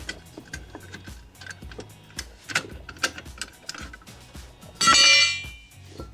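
Light metallic clicks and taps from taking screws and the cover off a dishwasher's electrical compartment, with a brief, louder metal rattle about five seconds in, over background music.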